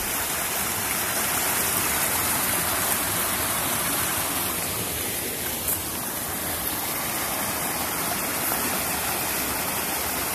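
Small stream cascading over rocks, a steady loud rush of water.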